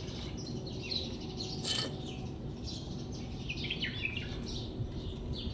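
Small birds chirping repeatedly in the background, short quick notes and little glides. About two seconds in comes one brief rustling scrape, a rag rubbing on the metal brake caliper bracket.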